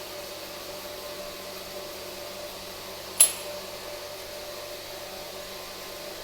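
Steady hiss and faint hum, with one sharp click about halfway through.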